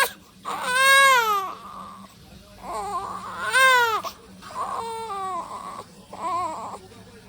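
One-month-old baby crying in a series of short wails, each rising and then falling in pitch; the two loudest come about a second in and near the middle, with softer, shorter cries after. Tired crying of a baby who is sleepy but can't fall asleep.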